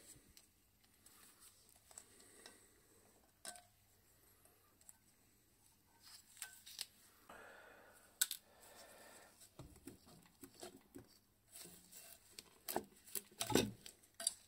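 Faint clicks, scrapes and light knocks from gloved hands working the rusty end bell of an old electric motor loose. Near the end there is a cluster of louder knocks and scrapes as the end bell comes away from the stator.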